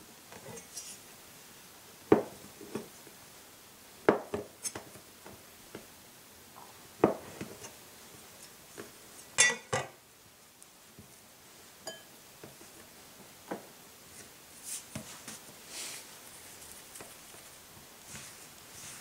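Kitchen utensils and dishes being handled: a scattering of separate knocks and clinks, one of them ringing briefly about nine and a half seconds in.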